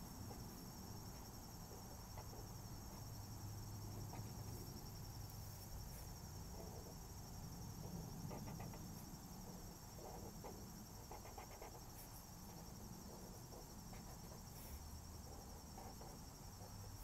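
Felt-tip marker drawing short strokes on paper: faint scratchy ticks in small clusters, over a steady high-pitched whine and a low hum.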